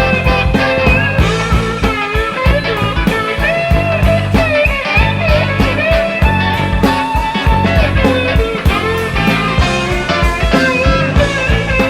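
Rock band playing an instrumental passage: an electric guitar lead with bent notes over bass and a steady drum beat.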